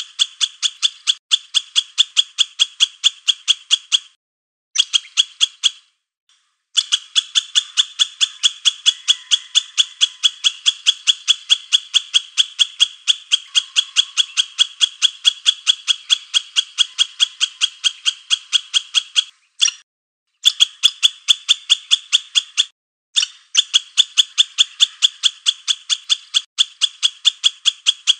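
A rapid, regular run of short high chirps, about four a second, from a calling animal; it breaks off and starts again a few times.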